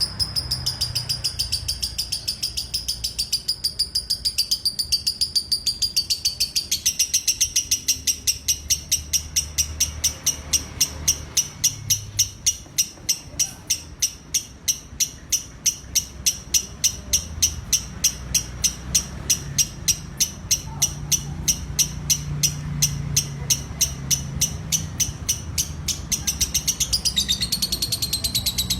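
Lovebird singing ngekek: the long, unbroken chatter that bird fanciers prize, made of high chirps repeated steadily at about four a second. The pitch shifts slightly about seven seconds in and again near the end.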